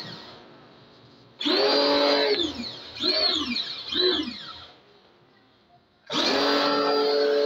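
Electric pressure washer's pump motor cutting in and out as the trigger is squeezed and released. It runs for about a second from about a second and a half in, gives two short bursts of a whine that rises and falls, then runs steadily again from about six seconds in.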